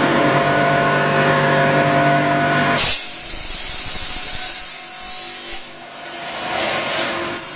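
Z purlin roll forming machine running with a steady motor hum, then about three seconds in a sharp clash as the hum drops away and the flying saw cuts through the steel purlin with a high rasping for a couple of seconds.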